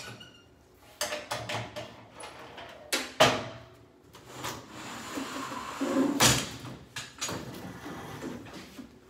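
Metal panels and the honeycomb work bed of an Aeon Mira 9 laser engraver being handled: the front door opens with clicks and a sharp knock a little after three seconds in, then a long scraping slide of the bed that is loudest about six seconds in, followed by a few lighter knocks.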